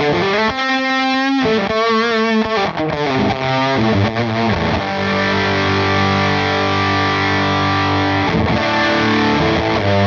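Electric guitar played through a Gokko Mogwai overdrive/fuzz pedal on its fuzz setting, giving a heavily distorted fuzz tone. The first few seconds hold bent, wavering notes, followed by long sustained notes ringing out.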